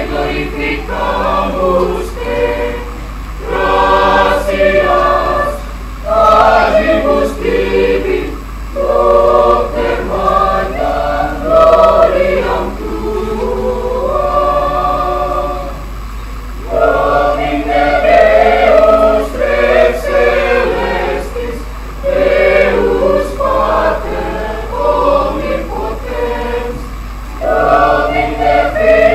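Mixed choir of women's and men's voices singing together, in sung phrases separated by brief pauses.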